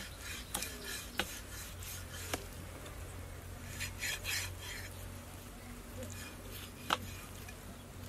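Large kitchen knife cutting raw chicken on a wooden chopping block: scraping and slicing through the meat, with scattered sharp taps of the blade on the wood, the loudest about seven seconds in. A steady low hum runs underneath.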